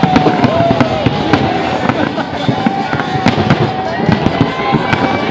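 Aerial fireworks shells bursting in quick succession: many sharp bangs and crackles, with people's voices underneath.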